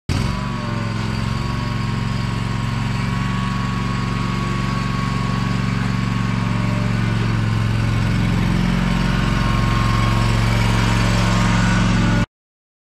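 An engine running at a steady speed, with a faint high whine above it; it starts and stops abruptly.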